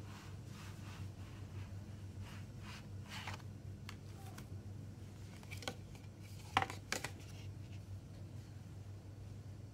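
A plastic CD jewel case being handled and slid in and out of a cardboard slipcase: light scraping and rubbing, with three sharp clicks of the case a little past the middle. A steady low hum runs underneath.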